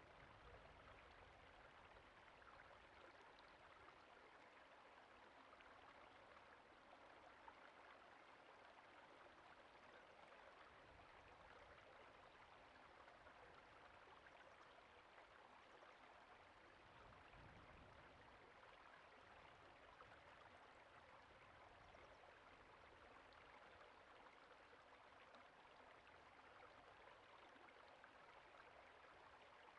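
Faint, steady rush of creek water flowing.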